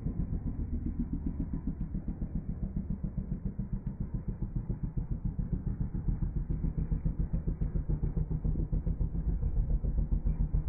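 Slowed-down, deep rumble of inline skate wheels rolling on asphalt, pulsing rapidly and evenly and growing a little louder toward the end, with a few faint clicks.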